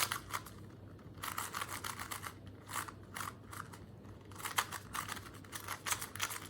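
GAN 251 M magnetic 2x2 speed cube being turned rapidly by hand: bursts of quick plastic clicks as the layers turn, broken by two short pauses. The cube is set up loose and fast-turning, too loose for the person turning it.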